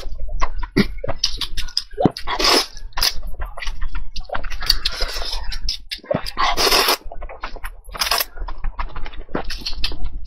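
Close-miked eating sounds: wet chewing and mouth smacks with many short clicks, broken by several short breathy rushes.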